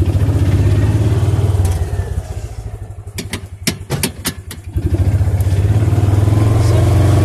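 Kawasaki Mule utility vehicle's engine running under way, heard from its cab. It eases off for a couple of seconds midway, with a few sharp clacks, then pulls strongly again and slowly rises.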